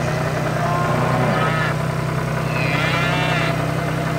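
Cows mooing twice, about a second in and again about three seconds in, over the steady low hum of a tractor engine.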